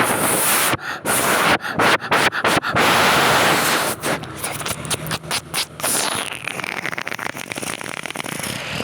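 Wind buffeting a phone's microphone: a loud rushing noise that cuts out briefly several times in the first few seconds, turns choppy midway and eases near the end.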